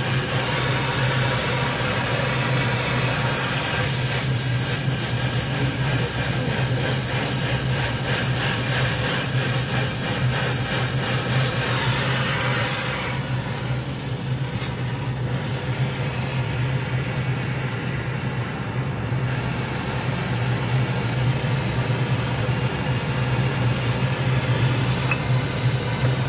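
Oxy-fuel gas cutting torch hissing steadily while it cuts through a steel pipe, with a steady low hum underneath. About halfway through, the sharp hiss drops away as the cut stops, leaving a softer flame hiss.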